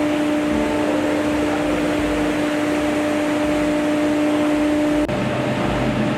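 Steady shipboard machinery and ventilation noise with a constant hum; about five seconds in the hum gives way to a lower one.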